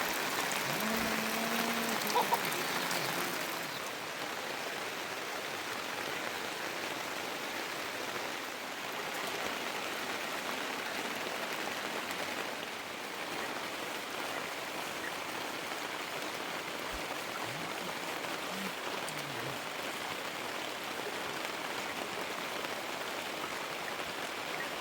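Steady heavy rain falling, a continuous even hiss.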